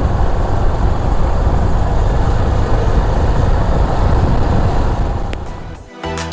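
Steady rush of wind and motorcycle running noise on the microphone while riding. It fades out about five seconds in, and music starts near the end.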